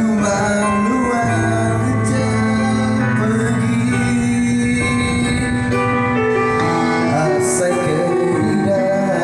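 Band music with held chords and a steady bass line, played without singing: an instrumental passage between sung lines.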